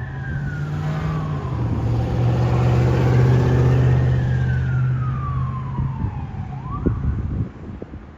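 Fire apparatus siren wailing in slow rising and falling sweeps, with a quick rise near the end, over a deep, continuous air-horn blast. The air horn is the loudest sound, drops slightly in pitch early on, and cuts off abruptly about three-quarters of a second before the end.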